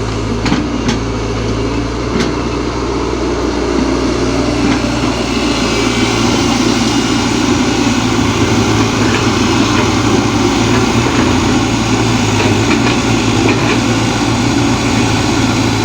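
Heavy diesel machinery engine running steadily, getting a little louder after a few seconds as it works. A few sharp knocks sound in the first two seconds.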